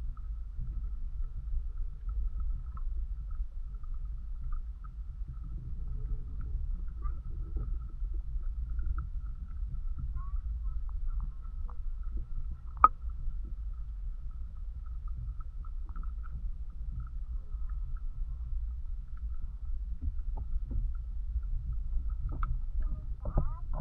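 Low, uneven rumble on the microphone, with a faint steady high tone and one sharp click about thirteen seconds in.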